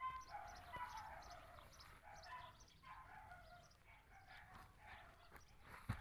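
Faint chicken calls, short pitched cries that come and go, with a single sharp thump near the end.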